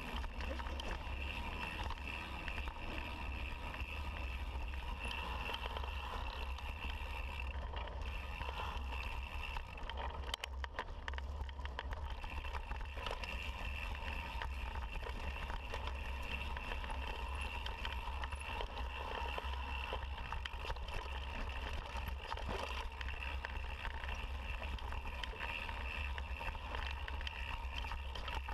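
Mountain bike rolling over a rocky dirt trail, heard from a camera worn by the rider. Wind and rolling noise on the microphone make a constant low rumble, with scattered knocks and rattles from the bike over rocks, bunched about ten to twelve seconds in.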